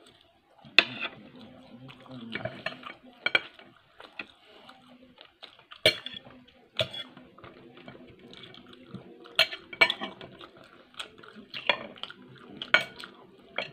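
Metal knife and fork clinking and scraping against a plate while cutting steak, with sharp clinks every second or two.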